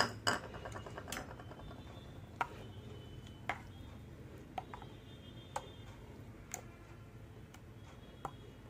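Steel spoon stirring curd into thin mint tambli in a bowl, clicking against the bowl about once a second, with a short ringing after some of the clicks.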